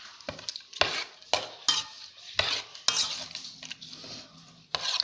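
A spoon stirring and scraping in a dish, mixing fajita spice into meat soaked in vinegar: about eight irregular scrapes and clinks.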